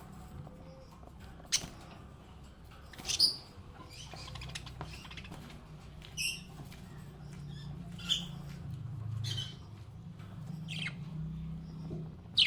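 Small pet parrots giving short, separate chirps and squawks every second or two, the loudest about three seconds in and one right at the end, over a low steady hum.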